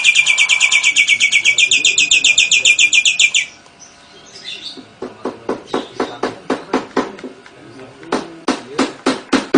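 Nias hill myna singing. It opens with a fast trill of rapid repeated high notes, lasting about three and a half seconds, in the style of a lovebird's ngekek. After a short lull it gives a run of sharp, loud calls at about four a second.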